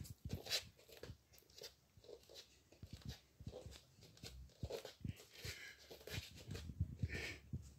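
Soft, irregular knocks and rustles of a handheld phone being moved about close to the floor, with light footsteps.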